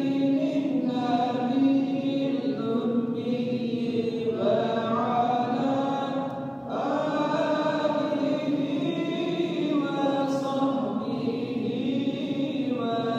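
Melodic religious chanting by voices in a mosque, sung in long drawn-out phrases with short breaks between them.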